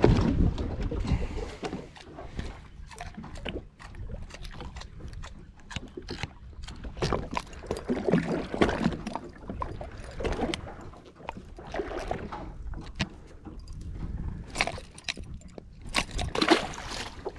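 Water slapping and sloshing against the hull of a small drifting boat, with scattered sharp knocks and clicks; the loudest knocks come right at the start and again about a second or two before the end.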